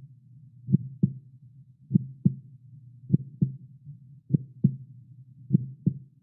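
Slow heartbeat sound effect: five double thumps (lub-dub), one about every 1.2 seconds, over a faint low hum.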